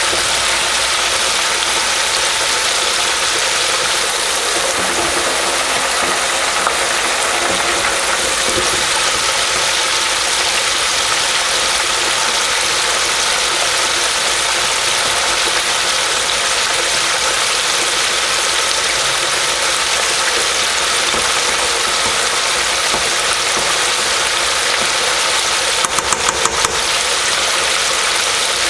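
Boneless chicken thighs deep-frying in canola oil in an electric deep fryer: a loud, steady crackle of bubbling oil from a batch that is still mid-fry. Near the end comes a quick run of about five clicks.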